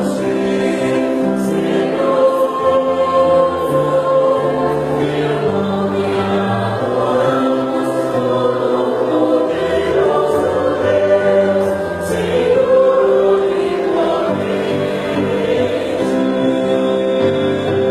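Choir singing a Christian worship song, holding sustained chords that shift every second or so.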